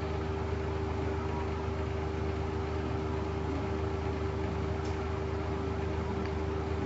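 Steady mechanical hum with one constant tone and a low rumble beneath it.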